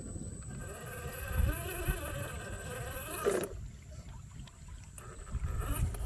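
Radio-controlled car's motor whining, its pitch wavering up and down with the throttle, over a low rumble. The whine stops about three and a half seconds in and comes back near the end.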